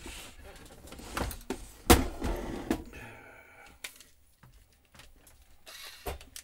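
Clunks and thuds of a metal equipment case being moved about on a workbench, the loudest about two seconds in. A small cordless screwdriver then whirs briefly, with one more knock near the end.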